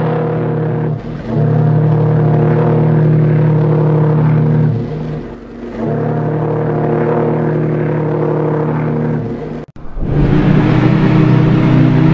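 Deep, multi-note steam whistle of a large ocean liner, presented as the RMS Olympic's, sounding in long steady blasts: one ends about a second in, a second lasts about three and a half seconds, a third about three and a half seconds. After a sudden cut, another liner's whistle at slightly different pitches starts near the end.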